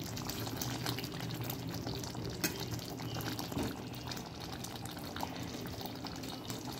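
Thick chicken masala gravy simmering and bubbling in a kadai while a slotted spatula stirs through it, with a steady fine crackle and a couple of sharper clicks from the spatula against the pan midway.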